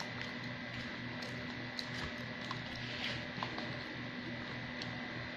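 Quiet eating sounds: a few faint, scattered clicks and taps of a plastic fork against a paper food box and plate, over a steady background hum.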